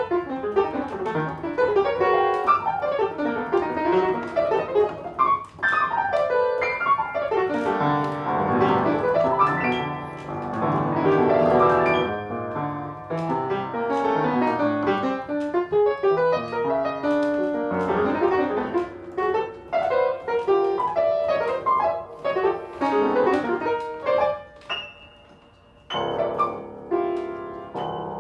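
Solo piano played with both hands: busy, dense runs and clustered chords across the keyboard, thinning about 25 seconds in to a few sparse high notes and a brief near-pause before the playing picks up again.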